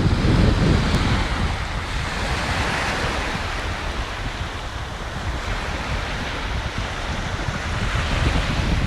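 Calm sea water washing onto a sandy beach in a hiss that swells and eases, with wind buffeting the microphone in a steady low rumble.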